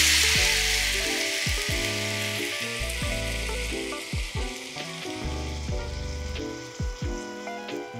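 Vegetable stock hitting a hot frying pan of sautéed burdock, carrot, potato and onion: a loud sizzle at first that dies down gradually to a quieter simmer.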